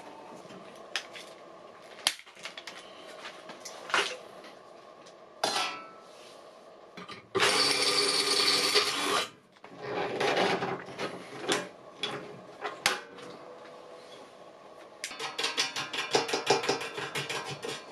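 Cordless drill boring a hole through the thin steel wall of an oven pan: one steady burst of about two seconds in the middle. Around it come knocks and scrapes of metal being handled on a wooden workbench, and near the end a fast run of small metallic clicks as a small bolt is fitted through the new hole.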